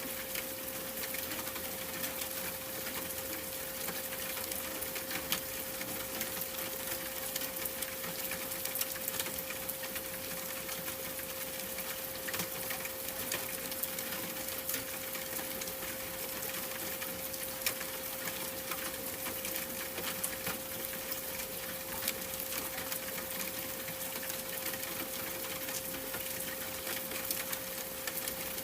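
A steady pure 528 Hz tone held without change, over a constant hiss scattered with many small, irregular ticks.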